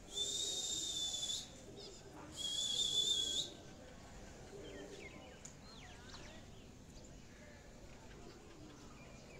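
Two long, steady, high-pitched whistles, each a little over a second, the second louder and lifting slightly in pitch as it ends; faint bird chirps follow.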